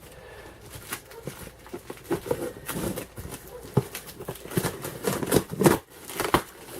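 Cardboard packaging being handled: irregular knocks, scrapes and rustles, a few sharper clacks late on.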